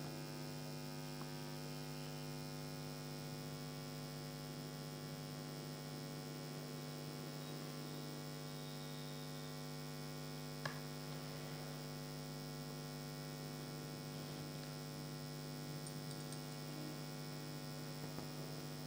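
Steady electrical mains hum, a low buzz with many evenly spaced overtones that does not change. A single faint click comes about ten seconds in.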